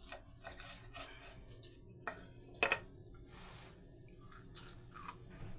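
Chewing a bite of crispy fried chicken: faint crunching with a few sharp crackles of the cornstarch-and-baking-soda crust, two of them louder about two seconds in.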